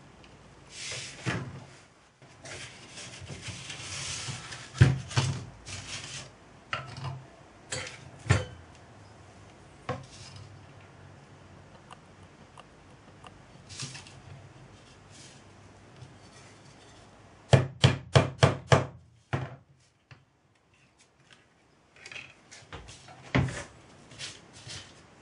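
A hammer tapping a small nail to punch a starter hole in a thin tinplate can lid resting on a wooden board: a quick run of about seven sharp taps about two-thirds of the way in. Around it, scattered knocks and scraping as the tin lid and tools are handled on the board.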